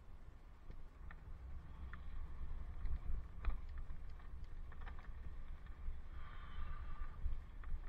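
Wind rumbling on a helmet-camera microphone during a bicycle ride, with scattered sharp clicks and rattles. About six seconds in comes a brief higher sound with several tones together.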